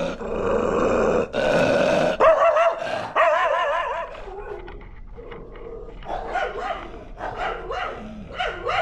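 Several shelter dogs barking in their kennels, loud with wavering, yowling calls for about the first four seconds, then quieter, scattered barks. The owner puts the barking down to strangers arriving at feeding time.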